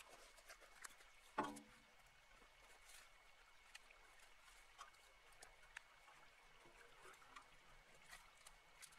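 Near silence: faint scattered ticks and twig crackles from dry brush being pulled by hand, with one sharper knock about a second and a half in and a faint steady high whine underneath.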